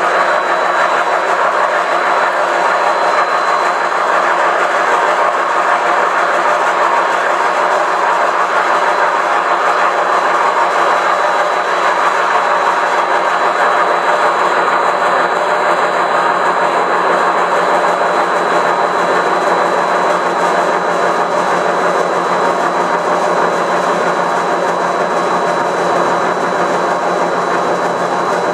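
1516F3 CNC vertical turret lathe turning a hardened bearing-steel cage with a ceramic cutting tool: a steady, dense machining noise with a thin constant high whine over it.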